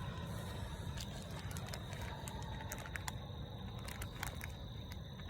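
Spinning tackle being worked on a cast and retrieve: light, irregular clicks and crackles from the reel and line handling over a steady low rumble.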